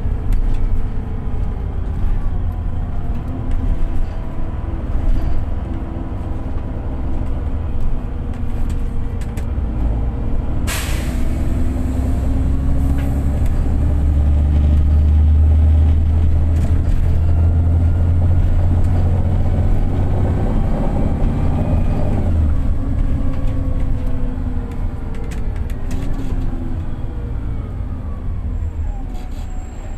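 A VDL DB300 bus's engine and Voith four-speed automatic gearbox heard from inside the bus, with whining pitches gliding up and down as it pulls and shifts. The engine is heaviest and loudest midway through. A short sharp hiss of air comes about eleven seconds in. The bus is in limp mode and short of power.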